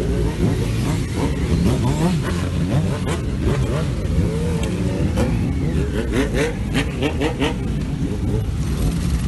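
Several motorcycle engines revving and pulling away one after another, their rising and falling pitches overlapping. A run of short sharp crackles comes between about six and seven and a half seconds in.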